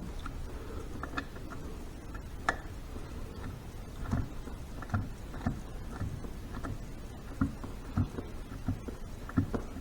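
Scattered clicks and light metal knocks of hand tools on bolts, irregular and busier in the second half, as the gear set's bolts are run in and snugged up on a Harley 5-speed transmission case.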